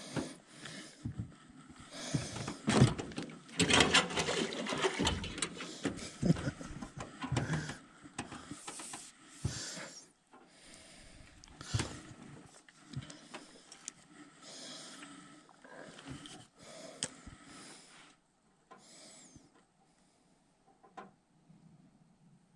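Handling noise: a run of knocks, rattles and rustling, busiest from about two to eight seconds in, then thinning to scattered clicks and soft rustle.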